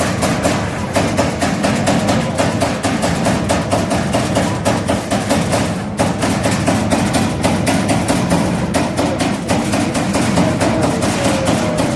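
CNC turret punch press punching sheet metal, a fast, steady run of sharp punch strokes.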